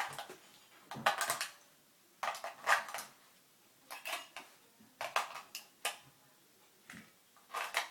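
Batteries rattling and clicking as they are fitted into the plastic battery compartment of a toy helicopter's remote control. There are several short bursts of clinking and snapping with brief pauses between them.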